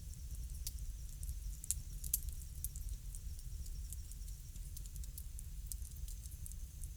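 Bonfire crackling: scattered sharp pops and snaps over a steady low rumble.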